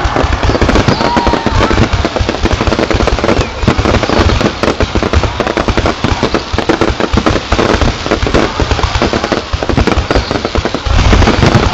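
Fireworks display: a dense, continuous barrage of rapid bangs and crackles, loud throughout.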